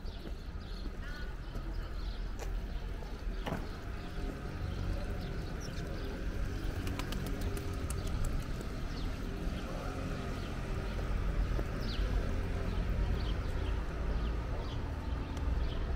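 Birds chirping in short, scattered calls over the steady low rumble of open-air city ambience.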